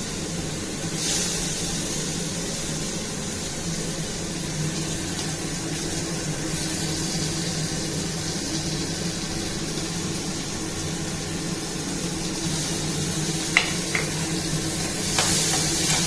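Food sizzling steadily in hot oil in a pan, with a few sharp clicks near the end.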